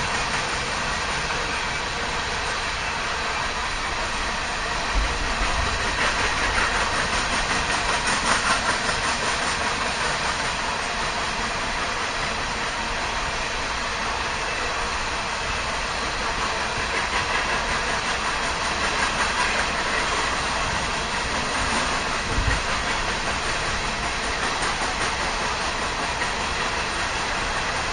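Freight train rolling past: a steady rattle of wheels on rails with a rhythmic clickety-clack, and a couple of heavier knocks from the cars about five seconds in and near the end.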